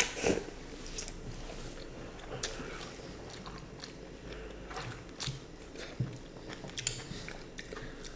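A person biting and chewing crispy fried chicken close to the microphone, with scattered small crunches and mouth clicks.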